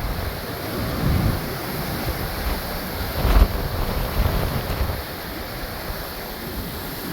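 Heavy storm surf breaking on the shore, mixed with strong wind buffeting the microphone in low rumbling gusts. A louder surge comes about halfway through.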